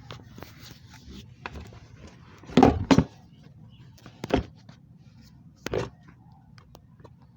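Four short, loud knocks, two close together about two and a half seconds in, then one near four and a half seconds and one near six, over a low steady hum.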